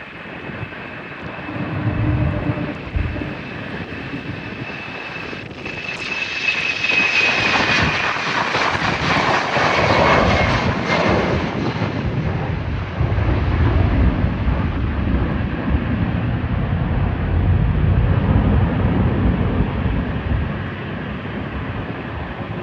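Airliner engines at takeoff power as the aircraft passes: a high whine that drops in pitch about seven seconds in, with the noise peaking soon after. A deep rumble follows and fades a little near the end.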